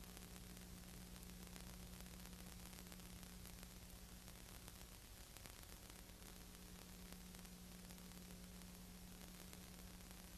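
Near silence: a steady hiss with a low hum, which drops out briefly about halfway through.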